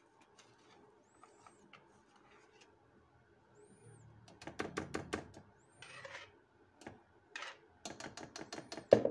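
Wire whisk tapping and scraping against a metal baking tray while spreading thick sponge batter. The first half is quiet, then come scattered light clicks and scrapes, and near the end a quick run of clicks ends in one sharper clink.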